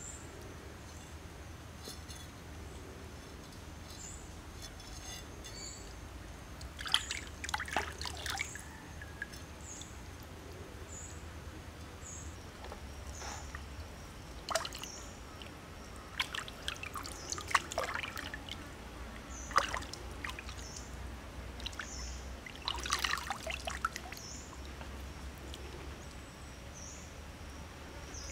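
Water splashing and trickling in short bouts as hands work and rinse snakes in shallow stream water. A short, high chirp repeats about once a second underneath.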